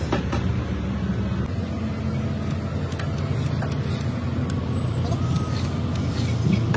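Magnetic-base drill running steadily, its annular cutter boring into steel plate and peeling off a long ribbon of swarf.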